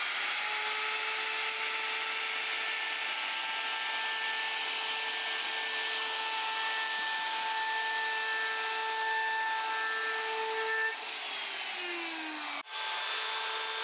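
Plunge router running at full speed with a steady high whine, rounding over the edges of 18 mm MDF with a roundover bit. Near the end its pitch falls as it winds down, then it breaks off sharply and is running again at full speed.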